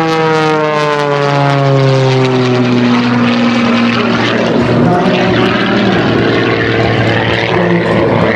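MXS-RH aerobatic monoplane's propeller engine flying past: a loud drone that falls in pitch over the first three seconds, then settles into a steadier, rougher drone.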